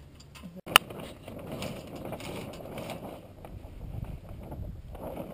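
A sharp click about a second in, then irregular rustling and knocking of an iceboat being rigged as its sail goes up.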